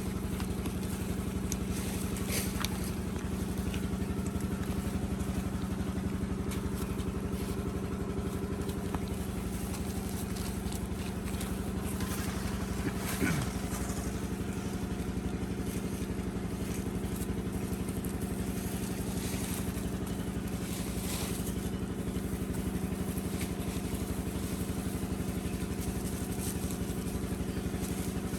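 A steady, even mechanical drone like a small engine idling, with scattered light clicks and crunches over it. A short sound falls in pitch about halfway through.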